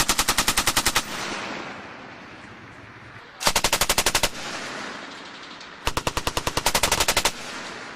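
Belt-fed machine gun firing three bursts of automatic fire at about ten shots a second: one already under way that stops about a second in, a short burst about three and a half seconds in, and a longer one about six seconds in. Each burst is followed by a trailing echo.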